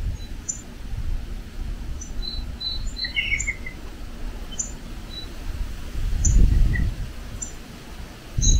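Birds chirping in short, scattered high calls over a low rumble that swells about six seconds in and again near the end.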